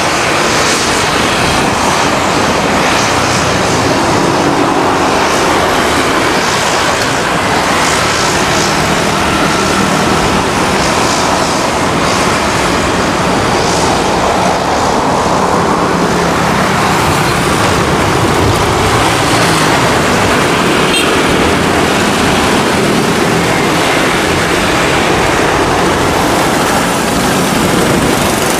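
Twin Pratt & Whitney PT6A-60A turboprop engines of a Beechcraft King Air 350i running steadily at taxi power, propellers turning, as the aircraft taxis along the runway.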